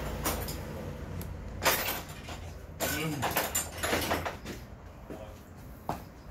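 Scattered clatter and knocks of things being handled, the loudest about a second and a half in, over a low hum that fades out near the end.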